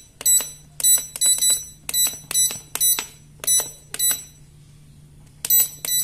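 Newtech digital price scale's keypad beeping: a quick run of short, high electronic beeps, one per key press, about a dozen, with a pause of about a second and a half near the end before more. The beeps show that the repaired scale has power again and is working normally.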